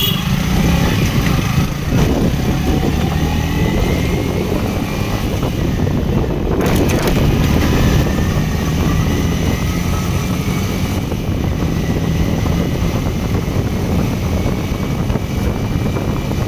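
Yamaha MT-15's 155 cc single-cylinder engine running steadily while the bike is ridden, with wind rushing over the microphone.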